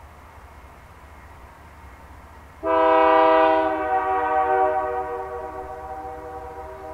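Canadian Pacific freight locomotive's air horn sounding, a chord of several steady notes. It starts suddenly about two and a half seconds in, is loudest for about a second, then slowly fades while still sounding.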